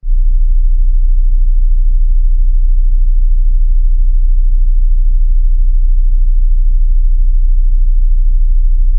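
Computer-generated pure 20 Hz sine-wave tone: a loud, steady, very low hum, with faint regular ticks about three times a second.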